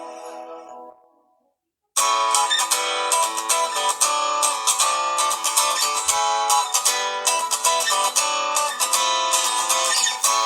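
Samsung Galaxy Fame ringtones: one tone fades out in the first second, then after a second of silence a new ringtone starts about two seconds in, a fast plucked, guitar-like melody of quick notes.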